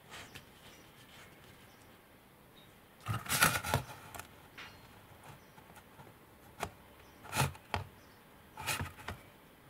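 Handling noise from a car engine control unit's housing being set down and shifted on a plastic bottle: a cluster of clicks and clatters about three seconds in, then a few single sharp knocks.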